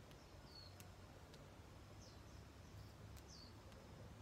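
Faint outdoor garden ambience: a small bird gives a few short, high, falling chirps, about three in all, over a low steady rumble, with a few light clicks.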